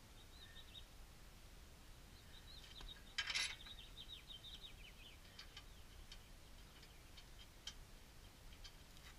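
Faint birds chirping in quick little runs, mostly in the first half, over near-quiet background. A brief clatter about three seconds in is the loudest sound, with a few light clicks later.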